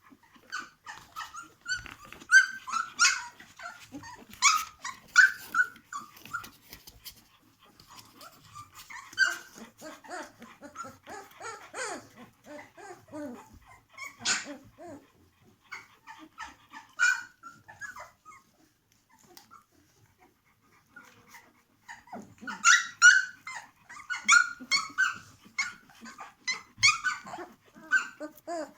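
A litter of 17-day-old puppies squeaking and whimpering in many short, high cries. The cries come thickest a couple of seconds in and again from about 22 seconds in, with quieter stretches between.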